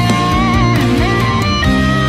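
Background music with guitar over a steady bass, its melody held and sliding between notes.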